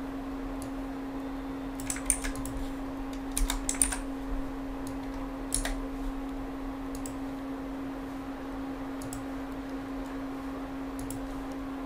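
Computer keyboard keys being pressed while code is edited: scattered keystrokes, a few quick ones in the first four seconds, then single taps every second or two, over a steady low electrical hum.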